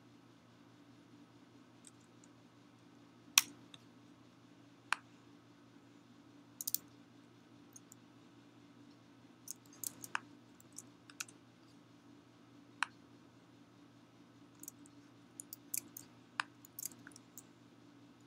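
Computer keys tapped in scattered single strokes and short runs, mixed with mouse clicks, over a steady low hum.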